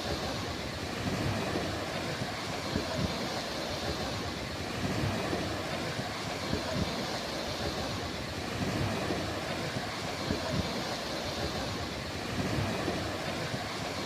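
Sea waves washing onto the shore, a steady surf hiss that swells and eases every couple of seconds, with wind buffeting the microphone.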